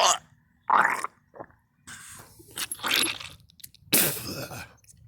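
A person coughing and retching in a series of short, harsh bursts, with a longer stretch of gagging in the middle and a loud burst near the end.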